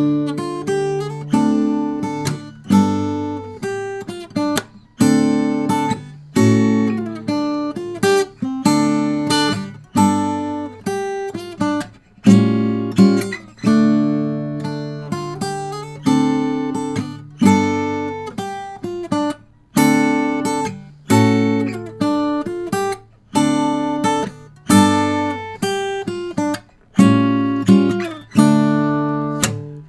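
Steel-string flat-top acoustic guitar played fingerstyle, solo and instrumental: a plucked melody over ringing bass notes in a steady rhythm.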